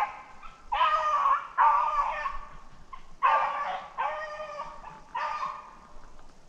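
Beagle baying on a rabbit's trail: about five drawn-out, howling bays in an uneven string, growing fainter toward the end. This is the sound of hounds running a freshly jumped rabbit.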